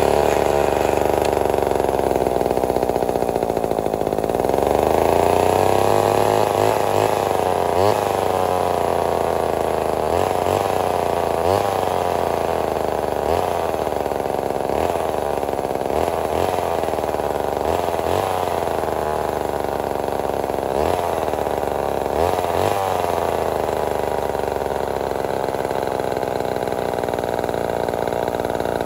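Homelite XL-12 two-stroke chainsaw engine running after its rebuild, its speed dropping and picking up again every second or two as the throttle is worked, then settling into a steady idle near the end.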